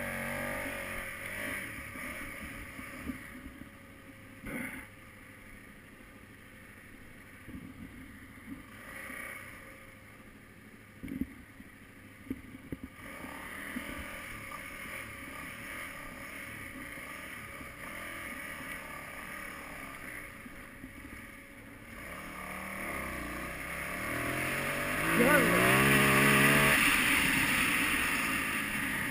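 KTM 990 Adventure's V-twin engine running at low speed over a dirt track, then revving up with rising pitch as the bike accelerates near the end, when wind noise grows loud.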